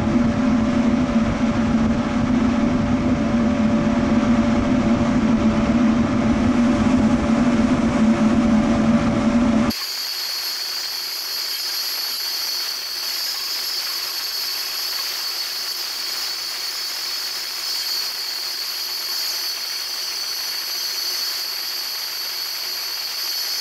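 Shop vacuum running steadily with a low hum, cutting off abruptly about ten seconds in and leaving a steady high hiss.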